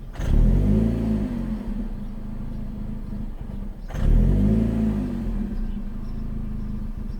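Chevrolet Cobalt SS engine with a hunting, bouncing idle. The revs rise and fall back once just after the start and again about four seconds in, settling to a steady idle between. This is the surging idle of a freshly replaced throttle body while the engine computer relearns it.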